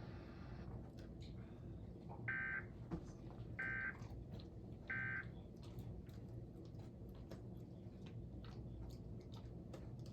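Emergency Alert System digital data tones: three short, identical buzzy bursts about 1.3 s apart. This is the end-of-message signal that closes the alert test.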